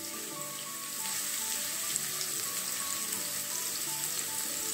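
Chopped onions sizzling steadily as they fry in a little oil in a nonstick wok, with tiny crackles over the hiss.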